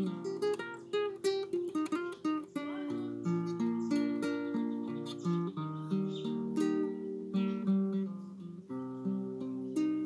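Nylon-string classical guitar played solo in an improvisation: a flowing run of plucked notes and chords over ringing bass notes.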